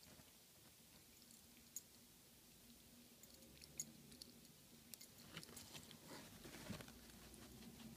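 Faint wet clicks and smacks of a tabby cat licking and grooming itself close to the microphone, in soft irregular bursts that grow busier about five seconds in.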